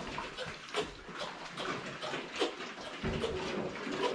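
Pigs eating at their feed and water: irregular chewing, snuffling and wet slurping sounds.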